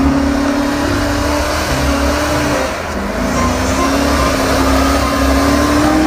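Hummer H2's V8 engine revving hard under load, its pitch climbing steadily, easing off briefly about halfway through, then climbing again.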